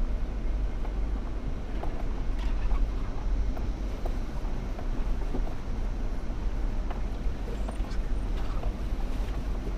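Off-road 4x4 crawling slowly over a rough trail: a steady low engine and drivetrain rumble with scattered knocks and rattles from the vehicle and from rocks under the tyres.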